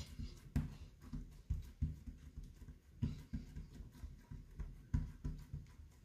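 Oiled hands pressing and patting a ball of paratha dough flat on a countertop: a run of soft, dull thumps, two or three a second, unevenly spaced.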